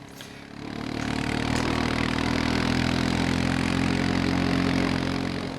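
Engine of a 2009 Honda Fourtrax Rancher ES ATV, a single-cylinder four-stroke, running under way on the trail. The sound builds up about half a second in, holds steady, and eases off near the end.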